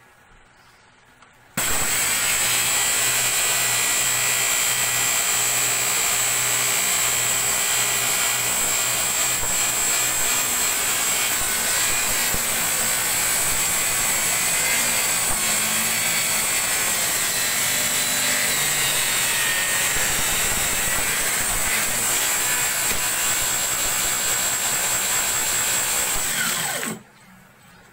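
Circular saw mounted under a homemade plywood table saw, running steadily with a high whine as it rips a board at a 45-degree bevel. It switches on suddenly about a second and a half in and cuts off suddenly shortly before the end.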